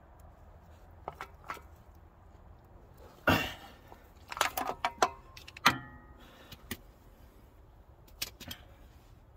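Handling noise of metal parts: a cluster of sharp clicks, knocks and rattles, the loudest a knock about three seconds in, with a brief metallic ring near the middle and a couple more clicks near the end.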